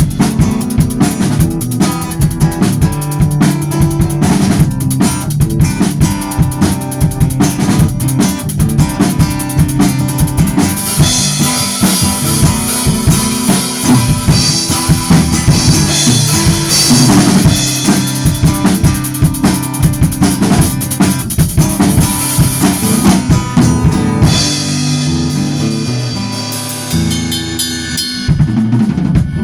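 Instrumental break in a country song: a drum kit with bass drum and snare keeps a steady, busy beat over other instruments, thinning out over the last few seconds.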